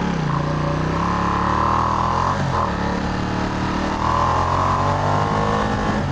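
Ducati XDiavel's V-twin engine accelerating hard from a stop, its pitch rising through the gear, dropping at an upshift a little over two seconds in, then climbing again, with another shift near the end.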